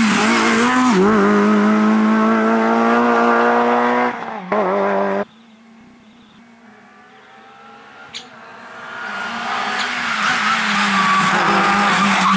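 Honda Civic Type R rally car's four-cylinder engine running hard at a steady high pitch, with a brief dip about a second in, then falling away and cutting off abruptly about five seconds in. After a few quieter seconds the engine rises again as the car approaches, and is loud again near the end.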